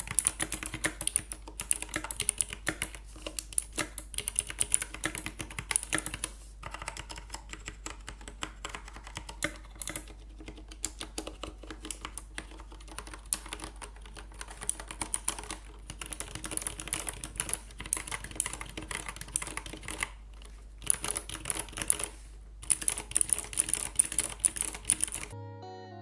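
Fast, uneven typing on a 60% hot-swap mechanical keyboard fitted with a mix of switch types: clicky Kailh Box, tactile and linear switches from Cherry, Gateron, Kailh, Outemu and Everglide. The key sounds vary from key to key, with a few short pauses, and the typing stops just before the end.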